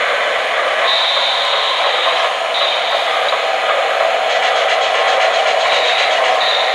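O-gauge K-Line New York Central Hudson model steam locomotive running along three-rail track: a steady rolling rattle and whir, with a high thin tone that comes and goes a few times.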